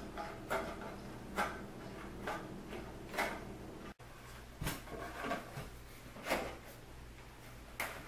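Hand snips making a series of cuts, a sharp snip about once a second. Then, from about halfway, a sheet-metal pan being handled, with a few light knocks and rattles.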